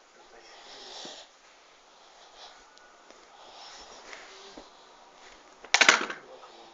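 Nervous cat hissing: soft breathy hisses, then one loud, harsh spitting hiss with a rattle near the end.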